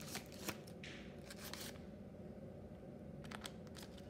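Paper model pistol being worked by hand: its paper slide is pulled back, giving a few light clicks and short bursts of paper crinkling and rustling.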